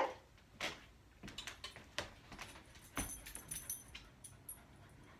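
A dog's nails clicking and tapping on a hardwood floor as it walks onto its bed, with a light metallic jingle from its harness, strongest about three seconds in. A brief rising squeak comes at the very start.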